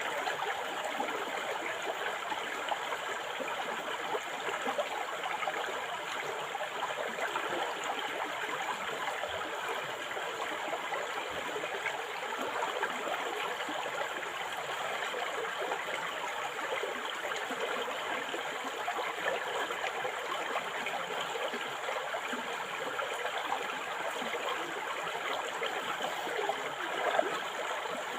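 River water flowing steadily, with one brief louder moment near the end.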